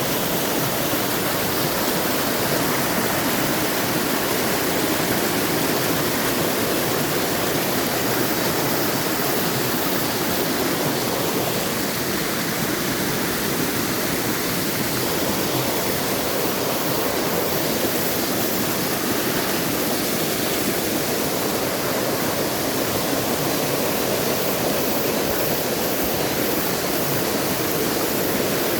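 Mountain stream water rushing and splashing over rocks, a steady full sound.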